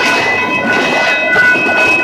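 Train running past on the rails: a steady rumble of wheels and cars, with several high squealing tones from the wheels that flicker on and off.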